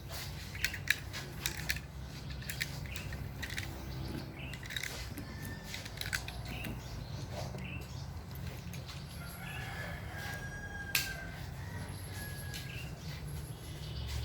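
Scattered short bird chirps over a steady low hum, with a run of light clicks in the first couple of seconds and a single sharp crack about eleven seconds in.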